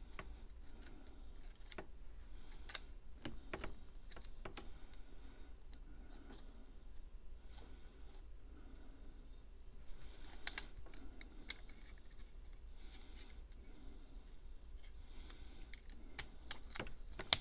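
Light clicks and taps of a Damned Designs Djinn folding knife's parts being fitted back together by hand, scattered throughout, with a cluster of sharper clicks about ten seconds in.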